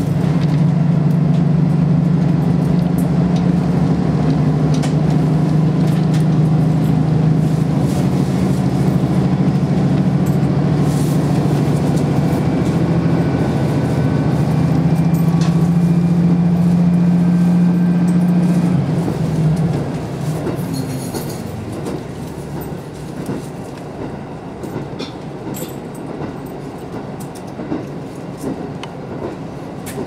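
KiHa 54 diesel railcar under way, heard from inside the car: the diesel engine drones steadily under power, then about two-thirds of the way through the engine note drops away and quieter wheel-on-rail running noise with scattered clicks of wheels over rail joints remains.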